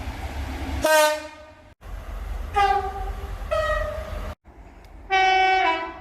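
Train horns in a run of short clips cut one after another over the low rumble of the trains. First comes a short blast about a second in. Then two-tone horns sound a high note followed by a lower one, the last with the high note dropping straight into the low.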